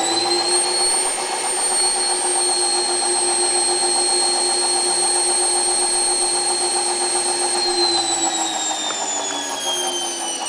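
Indesit WIE127 washing machine's electric motor whining as the drum spins. Its pitch finishes climbing about half a second in, holds steady, then falls from about eight seconds in as it winds down.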